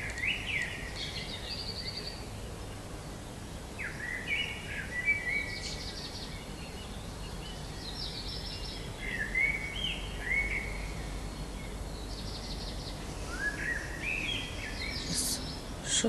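Songbird singing short phrases of gliding whistled notes ending in fast trills, one phrase every three to four seconds, over a steady low background rumble.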